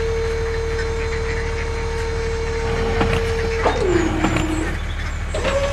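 Small electric drive motor of a mud-loaded model dump truck whining steadily over a low rumble. About three and a half seconds in, the whine drops in pitch amid a few clicks, as if the motor is bogging under load, and near the end it climbs back to a higher steady pitch.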